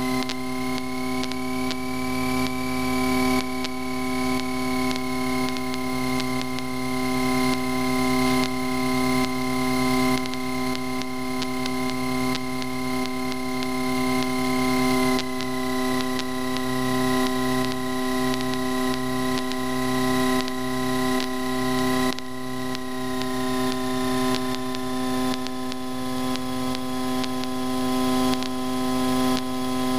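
Cessna 152's four-cylinder Lycoming O-235 engine and propeller running steadily at low power on the ground, a drone heard from inside the cockpit. A thin high whine runs along with it, dipping slightly in pitch about halfway through.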